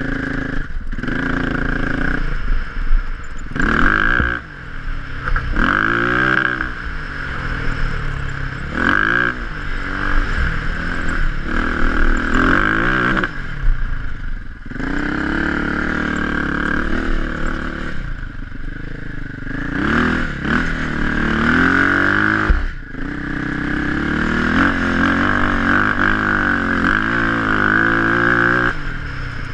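Bombardier DS650 quad's single-cylinder four-stroke engine under way on sand, revving up and falling back again and again as the throttle is worked, with brief drops between pulls.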